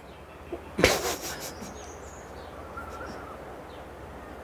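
A single sharp knock on a wooden tabletop about a second in, as something is set down, then a low steady background.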